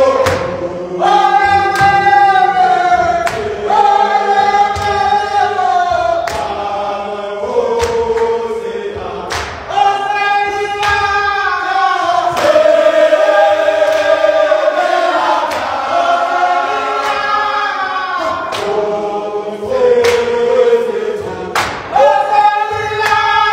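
A group of men singing a chant together in full voice, holding each note for a second or two, with sharp claps every second or so.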